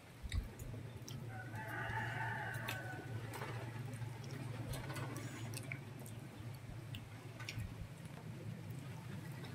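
A rooster crows once, a call about a second and a half long starting just over a second in. A steady low hum runs underneath, with a short thump right at the start and faint scattered clicks.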